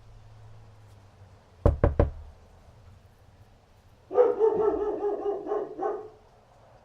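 Three quick sharp knocks, then a couple of seconds later a dog barking in a rapid, wavering run lasting about two seconds.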